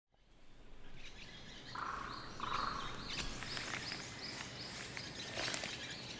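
Wild birds calling and singing over a steady outdoor background hiss, with many short high notes that fall in pitch and two lower, clearer calls about two seconds in. The sound fades in at the start.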